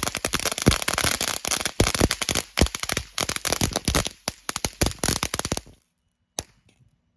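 Ground-driving 'missile launcher' novelty firework crackling: a dense, rapid string of sharp crackles that cuts off suddenly about six seconds in, followed by one last sharp crack.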